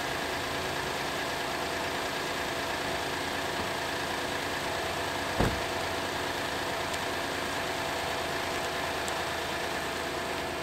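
A car engine idling steadily, with one short thump about five seconds in.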